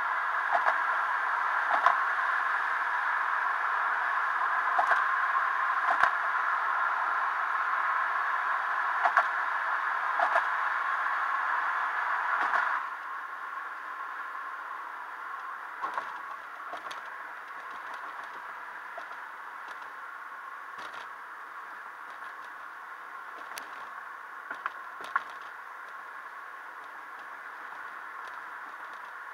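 Road and wind noise inside a moving car, with scattered small clicks and rattles. The noise drops noticeably about 13 seconds in.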